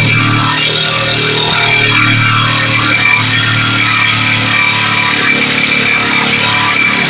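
Corded Bosch jigsaw cutting 6 mm steel plate with a fine-toothed bimetal blade lubricated with copper grease, running at about three-quarter speed. It makes a loud, steady machine noise: a low hum under a harsh hiss of the blade working through the steel.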